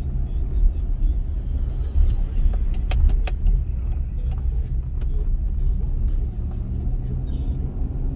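Road noise heard inside a moving car's cabin: a steady low rumble of engine and tyres as it drives through an intersection and onto the highway, with a few sharp clicks or rattles about three seconds in.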